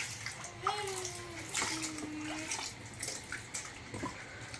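Water running steadily into a bathtub, with a few short knocks or splashes and brief high-pitched voice sounds in the first half.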